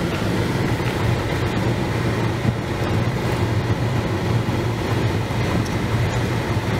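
Steady road and engine noise inside a moving car's cabin, with a constant low hum.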